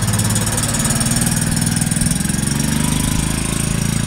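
Canta LX microcar's small engine running as the car pulls away, its pitch rising a little about two-thirds of the way through.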